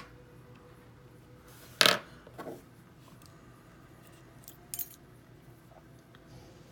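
Small metal clicks and taps of lock pins and parts being handled and set down while a pin-tumbler lock is taken apart: one sharp click about two seconds in, a double tick near five seconds, and a few faint ticks.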